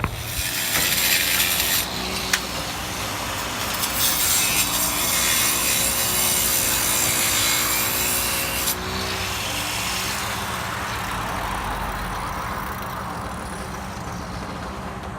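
Power saw cutting, in two loud cuts: a short one at the start and a longer one of about five seconds from roughly four seconds in, its motor pitch wavering under load; quieter working noise follows.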